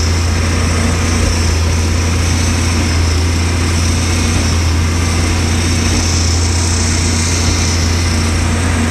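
Tractor engine running steadily at constant speed, a deep even drone with a high hiss over it.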